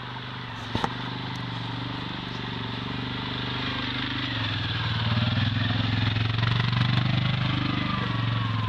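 Quad bike (ATV) engine running at low speed on a dirt track, a steady hum that grows louder about halfway through. A short click about a second in.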